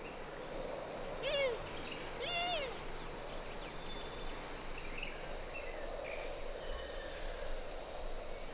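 Two short animal calls about a second apart, each rising and then falling in pitch, over a steady high-pitched insect drone and outdoor ambience.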